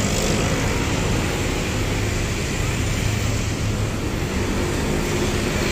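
Diesel engine of an intercity coach running as the bus pulls in and turns slowly close by: a steady low drone over general road traffic noise.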